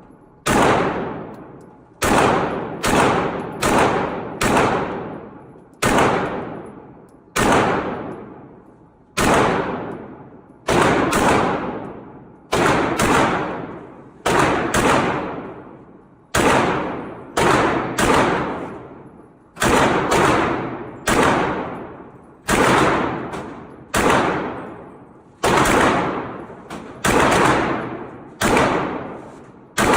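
Single gunshots at a shooting range: about two dozen shots at an uneven pace, some in quick pairs, each followed by a long echoing tail.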